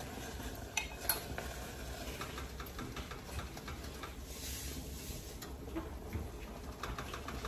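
A few light clinks and clicks of kitchen utensils against cookware, the sharpest two about a second in, then scattered fainter ticks over a low steady background.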